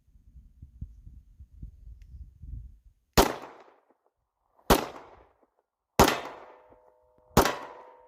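Four 9mm pistol shots from a Beretta 92FS Compact, fired one at a time about a second and a half apart, each sharp report dying away in a short echo. Before them, about three seconds of low rumbling handling noise. A faint steady ringing tone lingers under the last two shots.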